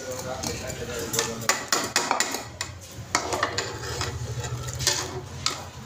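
A metal ladle stirs rice into boiling water in an aluminium pot, knocking and scraping against the pot's sides in irregular clinks.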